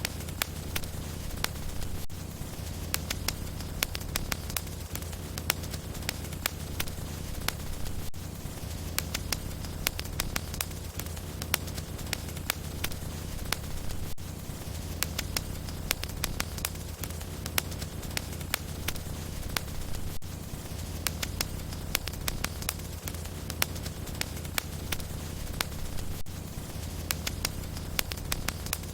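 Wood logs burning in a fireplace: dense, irregular crackles and pops over a steady low rumble of the fire. The same stretch of sound repeats about every six seconds.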